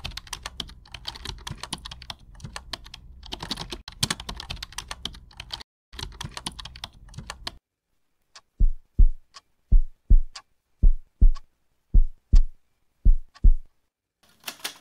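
Fast typing on a laptop keyboard, a dense run of key clicks with short pauses, stopping about seven and a half seconds in. After a brief silence come deep double thumps, five pairs about a second apart.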